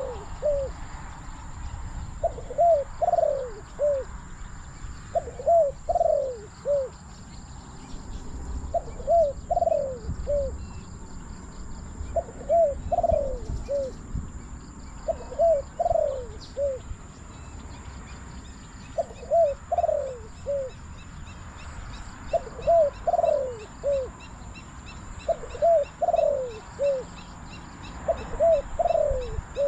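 Spotted dove cooing: a short phrase of about four falling coos, the third drawn out longest, repeated about every three seconds. Faint chirps of small birds sound behind it.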